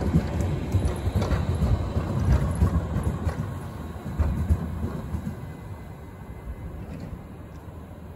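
Tram running away along street track: a low rumble with irregular clattering knocks from the wheels on the rails, fading steadily as it moves off.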